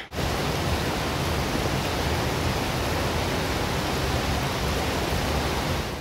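Waterfall, a steady, even rush of falling water with a deep low rumble under it.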